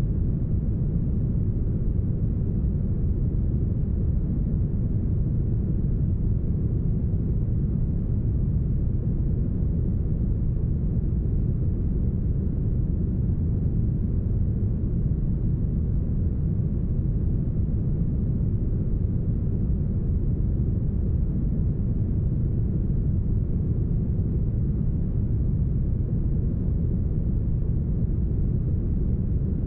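Deep, smoothed brown noise: a steady, unchanging rush with most of its weight in the bass and no high end.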